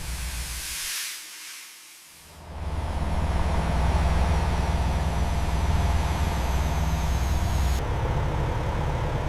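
A hiss of air in the first second, then after a short lull a steady low mechanical rumble that eases off near the end.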